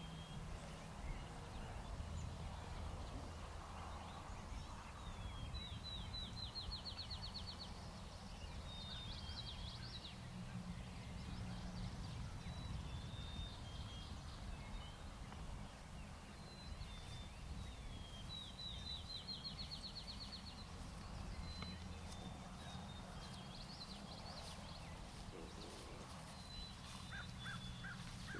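Wild songbirds singing: short high whistled notes, and twice a song that ends in a fast rising trill. Under them runs a low steady rumble.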